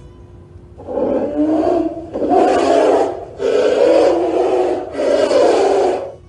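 Brown bear growling: four long, rough growls in a row, each about a second long.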